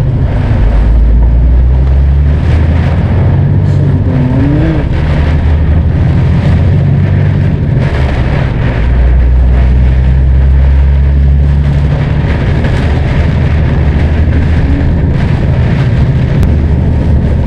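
Lorry engine running steadily under load, heard inside the cab, with heavy rain and road spray hissing over it. The engine drone swells for stretches and eases back as the load changes.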